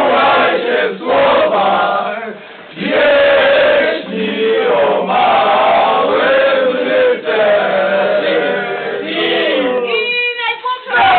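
A crowd of volleyball fans singing a chant together, in phrases a few seconds long with short breaks between them. Near the end a single voice sings out on its own for a moment.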